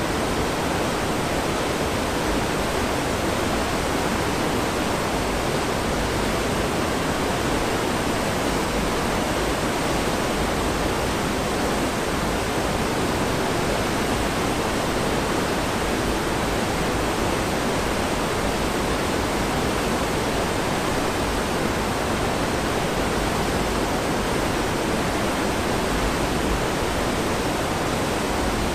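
Foaming wake churned up behind a cruise ship by its azipod thrusters: a steady rushing of water.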